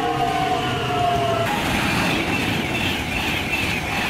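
Electric suburban train with a motor whine that slowly falls in pitch, over wheel and rail noise. About a second and a half in, this gives way abruptly to the steady rushing noise of a high-speed electric train passing at speed.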